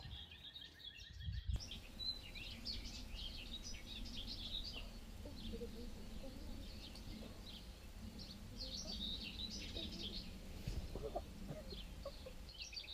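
Songbirds chirping and calling in quick, scattered bursts over a faint low outdoor rumble.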